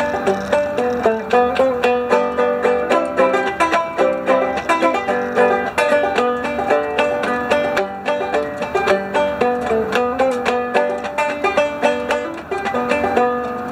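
Banjo played solo: a steady tune of quick plucked notes.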